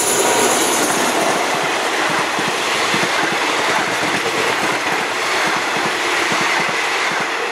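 State Railway of Thailand passenger coaches rolling past close by: a steady rumble of steel wheels on the rails with repeated clicks and knocks from the wheels, easing slightly near the end as the train moves away.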